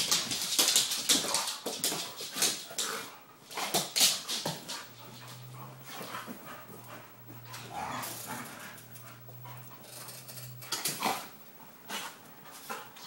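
Two dogs play-fighting: scuffling, with sharp clicks and knocks of paws and bodies on a wood floor and a couch, loudest in the first few seconds, mixed with short dog vocalisations. A low steady hum runs through the middle stretch.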